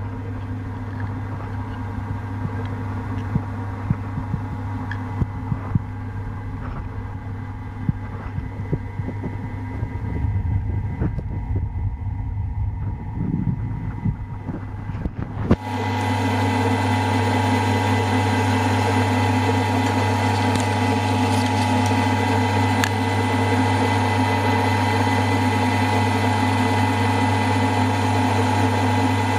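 Milling machine running steadily while a 1/8-inch end mill cuts a slot through a casting, with irregular small ticks from the cutter and chips. About halfway the ticking stops and the machine hum becomes steadier and louder.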